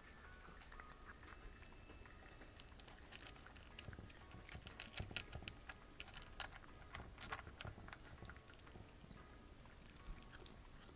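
A cat eating close to the microphone: faint, irregular chewing and biting clicks, busiest in the middle few seconds.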